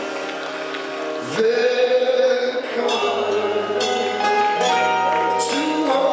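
Live band music: several voices singing together with guitars and drums, sustained sung notes through most of it.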